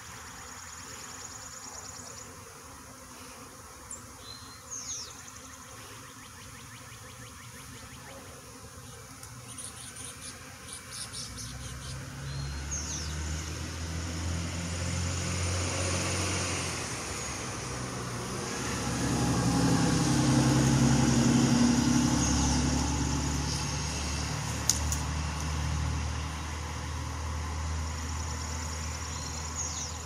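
A motor vehicle's engine rumbles in about a third of the way through, is loudest about two-thirds through, then eases to a lower steady level. A swarm of honeybees buzzes faintly throughout, with a few light clicks and rustles from branches being handled.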